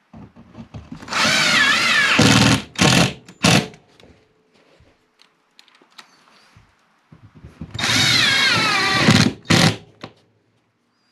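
Cordless drill-driver driving screws through cement backer board into the wall, twice. Each screw is a run of motor whine of about two to two and a half seconds, its pitch wavering under load, followed by one or two short trigger blips to seat the screw.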